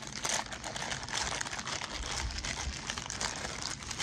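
Clear plastic packaging bag crinkling as it is handled and opened and the cable connectors inside are pulled out.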